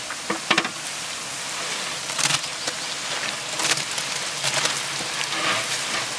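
Food sizzling and crackling in a large metal cooking pot, with short metal scrapes and clatters as fried shreds are pushed off a round metal tray into it with a long-handled spatula.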